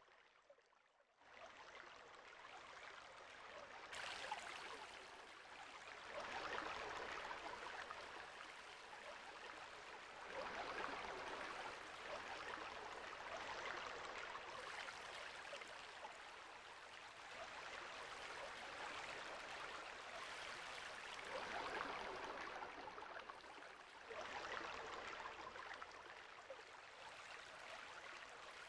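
Rushing of shallow stream water over gravel, a steady noise that swells and eases every few seconds. It starts after a moment of near silence in the first second.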